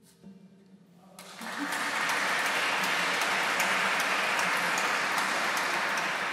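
Audience applauding, breaking out about a second in as the last lever harp note dies away.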